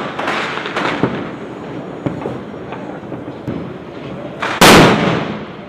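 Diwali firecrackers going off: a quick crackle of pops in the first second, a few scattered small pops, then one very loud bang about four and a half seconds in that rings on briefly.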